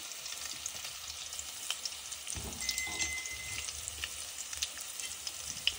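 Hot oil sizzling in a kadhai with cumin, chopped garlic and mustard seeds for a tadka, the mustard seeds spluttering in many scattered sharp crackles. A soft low thump a little over two seconds in.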